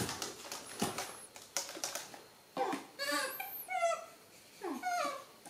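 Baby macaques giving short, high-pitched calls that bend in pitch, one sweeping very high, as they beg for milk; a few light taps are heard first.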